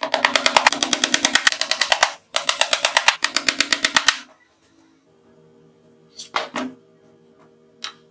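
A steel hammer tapping rapidly on the edge of a plywood panel, many quick blows in two runs with a short break about two seconds in, stopping about four seconds in. A few light knocks follow near the end.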